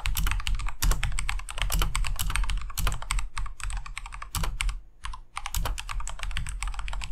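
Fast typing on a Corsair K68 mechanical keyboard with Cherry MX Red switches: rapid runs of key clicks with a short pause about five seconds in. The silicone dust-and-spill cover around the keys makes the switches sound softer than usual.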